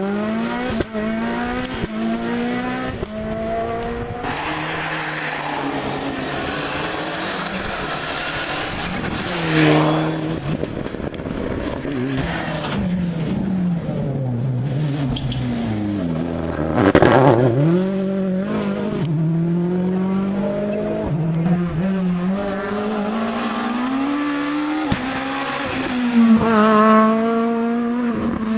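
Rally car engines at full throttle, the revs climbing and dropping sharply through gear changes. Cars sweep past close by several times, loudest about ten, seventeen and twenty-seven seconds in.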